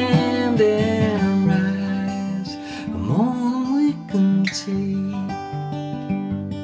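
Steel-string acoustic guitar strummed in a steady chord pattern, with a wordless sung note held and wavering over the first second or so.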